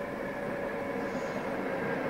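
SBB Re 460 electric locomotive hauling passenger coaches past, a steady rumble of wheels and running gear with several whining tones held over it.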